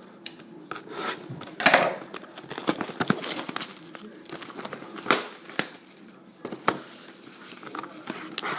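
Plastic packaging crinkling and tearing, with irregular sharp rustles and clicks: a sealed box of trading cards being unwrapped and opened.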